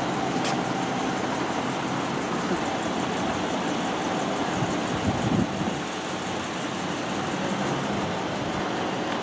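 Steady street noise from motor vehicles, with a brief louder low rumble about five seconds in.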